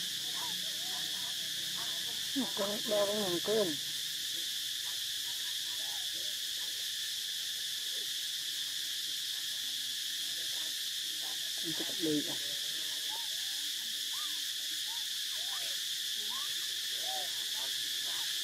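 Steady outdoor insect chorus, a constant high buzzing drone, with a short run of pitched hooting calls about two seconds in and another brief one about twelve seconds in.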